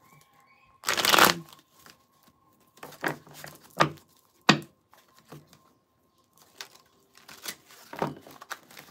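A deck of tarot cards being shuffled by hand: a longer burst of riffling cards about a second in, then a series of short, separate card slaps and flicks every second or so.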